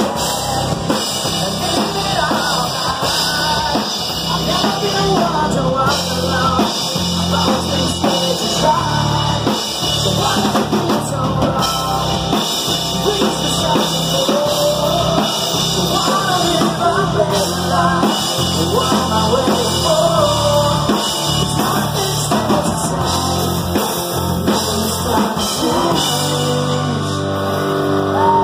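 Live rock band playing loud: sung vocals over a drum kit, electric guitar and bass guitar.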